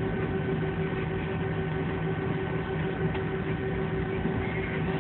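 Steady engine noise of a jet airliner heard inside the passenger cabin: an even rush with a steady hum under it.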